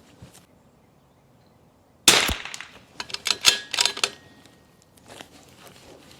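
.22 LR rifle firing a single shot, a sharp crack about two seconds in, followed within a second or two by a quick run of sharp clicks.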